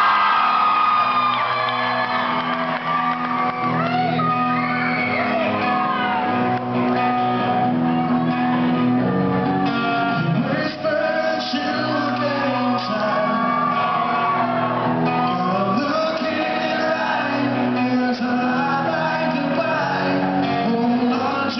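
Live rock music recorded from the audience: the opening of a song on held chords, with fans screaming and whooping over it.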